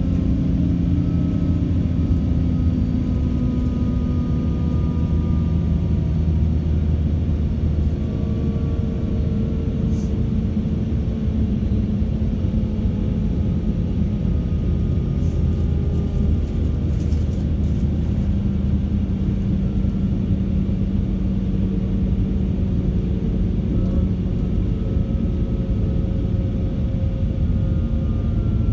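Class 196 diesel multiple unit's MTU 6H 1800 inline-six diesel engine running under way with a steady low rumble. A fainter whistle-like tone above it falls slowly in pitch over the first several seconds and rises a little near the end.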